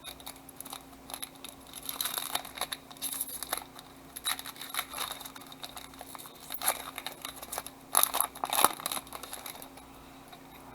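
Trading-card pack wrapper being torn open and crinkled, with the cards handled, in irregular crackling bursts that are loudest near the end.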